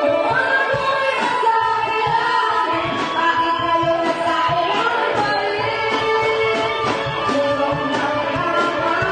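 Live band music: several female vocalists singing over drums and electric guitar, with a steady drum beat underneath.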